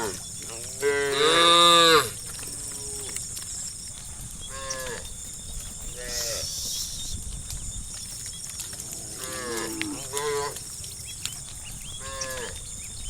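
A herd of cows mooing: one loud, long moo about a second in, then shorter calls from several animals every second or two.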